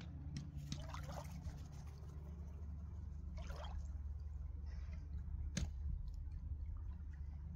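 Faint water splashing and dripping, two soft splashes about a second in and again near the middle, over a steady low rumble.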